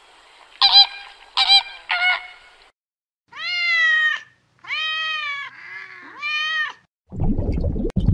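Flamingos honking, three short calls in the first two and a half seconds. Then a domestic cat gives several long meows that rise and fall in pitch. Near the end a low rumbling water noise begins.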